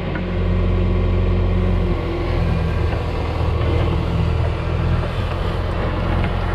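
John Deere 410 backhoe's diesel engine running steadily under work.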